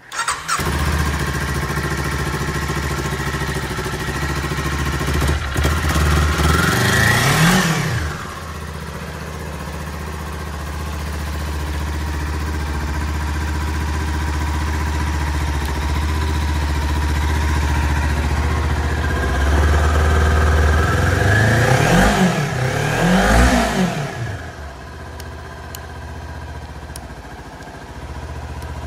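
Kawasaki Ninja 400's parallel-twin engine starting and running. It is revved twice: one climb that peaks and drops back about a quarter of the way in, then a few quick blips about three-quarters in, each time settling back to a steady idle.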